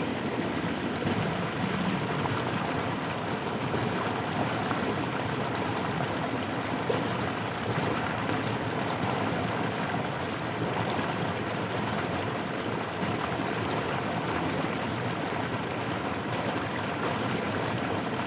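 Floodwater running steadily through a rice-field channel, a continuous rushing noise of flowing runoff.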